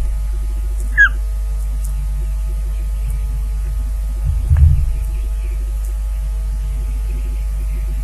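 Steady electrical hum and pulsing buzz from the nest camera's audio, with one short, downward-sliding whistled call about a second in, typical of an osprey at the nest. A dull low thump comes about halfway through.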